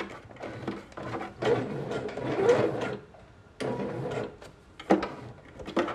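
Computerised Pfaff sewing machine stitching through fabric in short runs, stopping and starting with brief pauses and a few clicks between.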